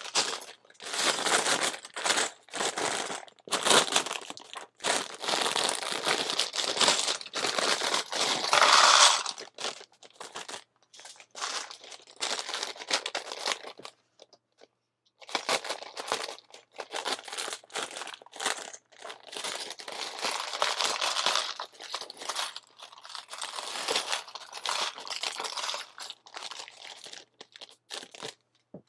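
Plastic parts bag of building bricks crinkling and rustling as it is torn open and handled, in irregular bursts with a short pause about halfway through.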